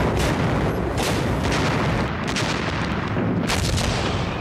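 Battlefield artillery and gunfire: several sharp blasts and shots over a continuous rumble.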